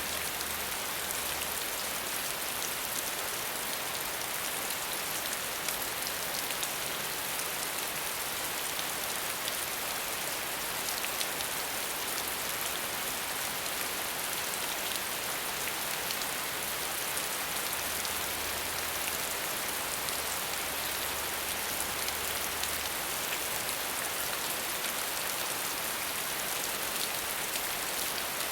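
Steady heavy rain falling on a surface, a dense even hiss with many fine drop ticks.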